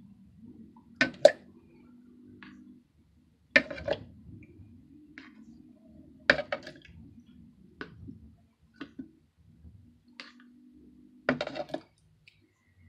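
Peeled ripe bananas are lifted off a plastic plate with a metal fork and dropped into a plastic blender jar. The sound is a series of sharp knocks and clinks: about four loud ones a few seconds apart, with lighter taps between.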